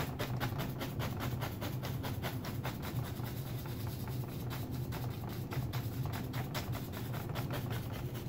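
A paintbrush scrubbing quickly against stretched canvas in short strokes, several a second, blending oil paint to soften the edges of a painted mountain, over a steady low hum.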